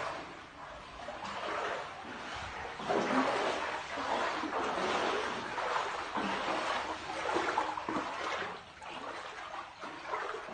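Floodwater sloshing and splashing across a house floor, rising and falling unevenly, as rainwater stands through the rooms.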